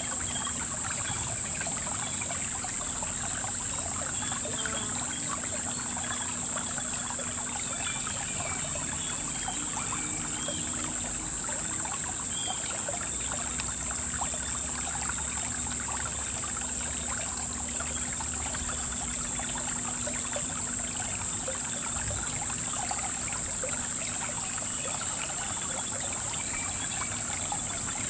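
Shallow river water trickling and babbling over stones, steady throughout, with a continuous high-pitched insect buzz.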